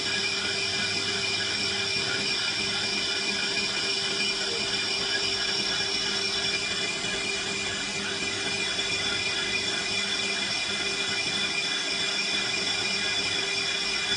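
A large lathe turning a stainless steel (1.4301) pipe: a steady machining noise with a constant high-pitched whine.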